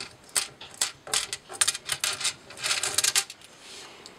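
Small 3D-printed plastic parts clicking and clattering against the textured steel print sheet of a Prusa Mini 3D printer as they are picked off the bed, a quick run of clicks that eases off near the end.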